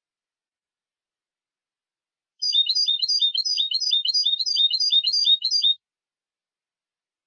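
European goldfinch (jilguero) singing one phrase of clean, competition-style song, a high twittering figure repeated about three times a second for roughly three seconds, starting about two and a half seconds in.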